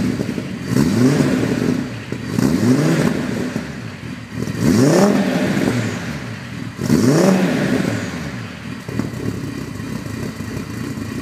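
Audi TT RS 2.5 TFSI turbocharged five-cylinder, breathing through a full titanium exhaust, revved in four quick blips that rise and fall, then settling back to idle for the last few seconds.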